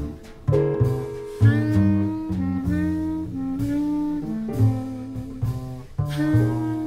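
Live small-band jazz: a clarinet plays a solo line of held and moving notes over double bass and drums, with short breaks in the line near the start and about six seconds in.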